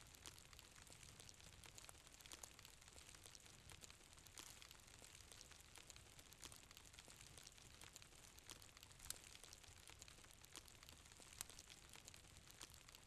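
Faint fire crackling: a low steady hiss with irregular small pops and snaps, two sharper pops about nine and eleven seconds in.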